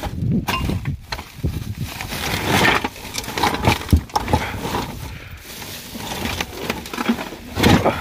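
Pieces of scrap iron clanking and rattling together in a half-full sack as it is shifted, a run of irregular knocks with the loudest clatter near the end.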